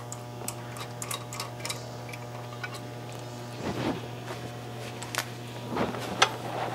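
Light, irregular metallic ticking as the last flywheel bolt is backed out. Then scraping and a few clunks as the dual mass flywheel is gripped and worked loose on the crankshaft.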